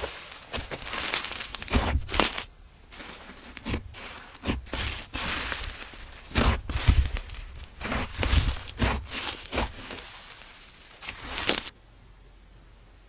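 Hands kneading and squishing slime with clay mixed in: sticky squelches and crackly clicking pops in irregular bursts, stopping suddenly near the end.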